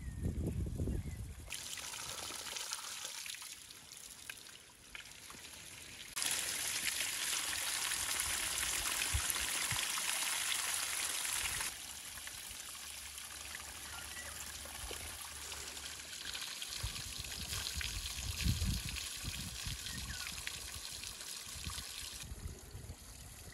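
Spring water pouring from a stone spout and splashing, with berries being rinsed in a wicker basket under the stream; the water sound jumps in loudness at a few hard cuts and is loudest in the middle. A few low thuds sound near the start and again later.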